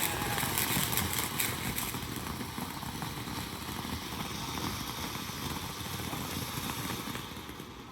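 A burning ground firework giving off a steady rushing hiss, with a few sharp crackles in the first second or so.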